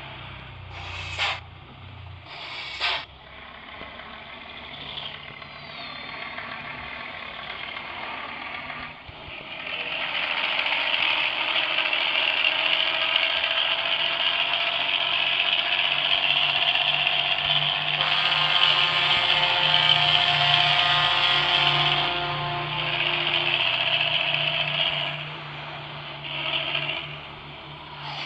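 Bus engine running through its modified 'ngorok' (snoring) exhaust, building up about ten seconds in and loudest around the middle before easing off. Two short, sharp bursts of noise come near the start.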